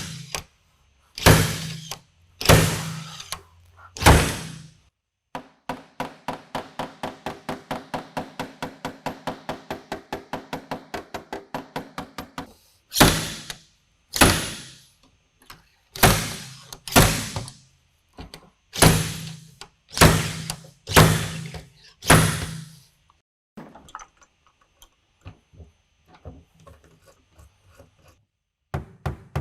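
Repeated sharp knocks of a dent-pulling tool, most likely a slide hammer, yanking glue tabs to pull a dent out of a car panel, roughly one strike a second. In the middle comes a run of fast, even clicking, about four clicks a second, and the knocks die away near the end.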